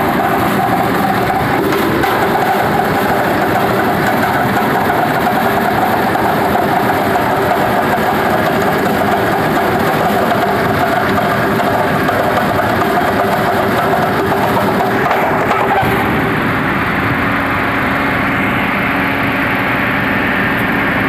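OMC-ZDJM road stone processing machine running steadily, a dense mechanical drone and rattle as a stone slab is fed on its chain conveyor and its face is worked rough. The sound eases a little about sixteen seconds in.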